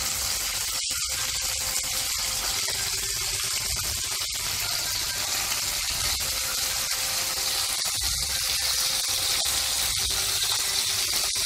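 Indian mackerel pieces shallow-frying in coconut oil in a nonstick pan: a steady sizzle while the pieces are turned over with a spatula partway through cooking.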